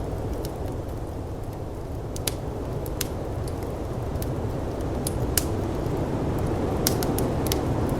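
Wood fire crackling with scattered sharp pops over the steady rush of blizzard wind, which grows slightly louder toward the end.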